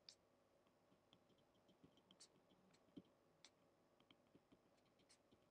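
Faint ticks and taps of a stylus writing on a tablet, irregular and scattered, over near-silent room tone.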